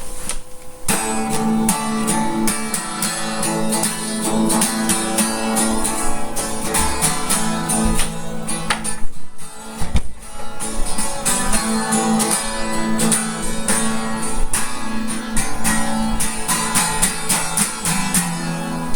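Guitar strumming chords steadily, with a steady held tone underneath, dipping briefly about halfway through.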